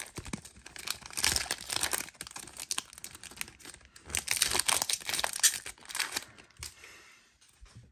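Foil wrapper of a Panini Contenders Football trading-card pack crinkling and tearing as it is opened by hand. The rustling dies away near the end.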